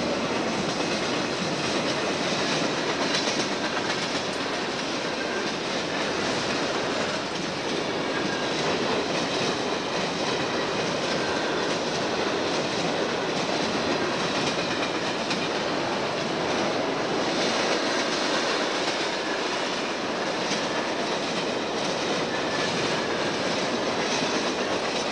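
Conrail freight train's cars rolling steadily past a grade crossing: continuous noise of steel wheels running on the rails.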